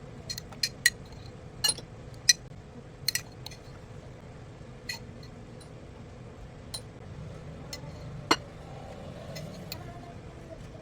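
Dishes and glassware clinking and knocking: a string of sharp clinks, most of them in the first few seconds, then scattered ones and a loud knock about eight seconds in, over a faint steady hum.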